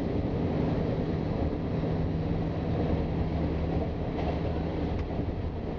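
Running noise of a moving passenger train heard from inside the carriage: a steady rumble of wheels on track with a low, even hum, and a faint click about five seconds in.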